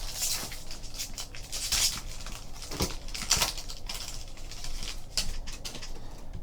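Trading-card packaging and cards being handled: an irregular run of rustles, crinkles and light clicks that goes quieter near the end.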